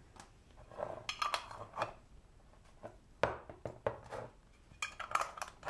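Metal twist-off lids being screwed onto glass jars, the lid threads scraping and clicking and the glass clinking, in three short spells.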